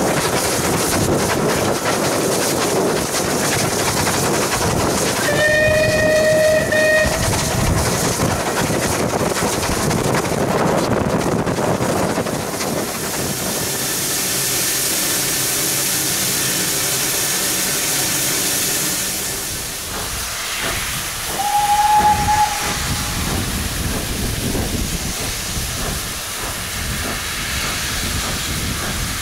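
Steam locomotive whistle: one blast of about a second and a half, about five seconds in, then a loud hiss of escaping steam for several seconds, and a shorter, higher-pitched whistle blast a little past twenty seconds.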